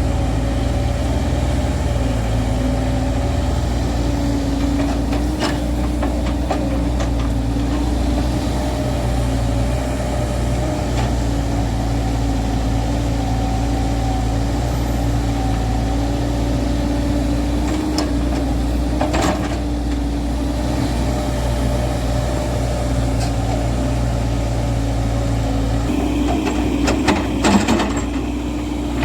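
Hydraulic excavator's diesel engine running steadily, its pitch drifting slightly up and down. A few short metallic knocks, with a louder cluster near the end.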